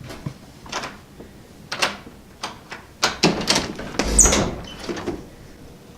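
A series of short scrapes and knocks, with a heavy thud and a brief squeak about four seconds in.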